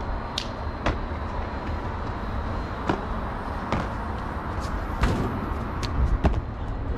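Sharp knocks and slaps of sneakers and hands striking brick walls and concrete ledges during parkour wall runs, vaults and flips: several separate impacts at irregular spacing, over a steady low rumble.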